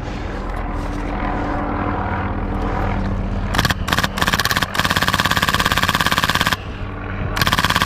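Rapid automatic gunfire: a few short bursts followed by two long sustained bursts with a brief pause between them, over a steady hum.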